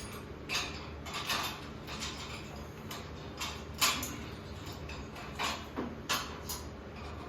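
Metal scaffolding parts being handled and fitted together: a string of irregular clanks and scrapes, the loudest about four seconds in.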